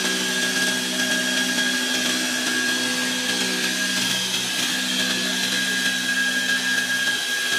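Trolley belt sander grinding a weld seam flat on metal sheet: the electric motor and abrasive belt run steadily under load, giving a constant hum and whine over a grinding hiss. The tones shift slightly about four seconds in.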